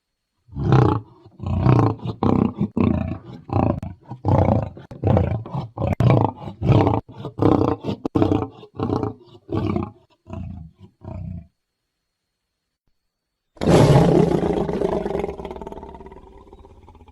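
Dragon creature sound effect: a rapid run of short guttural calls, about two a second for some eleven seconds, then after a pause of about two seconds one long roar that fades away.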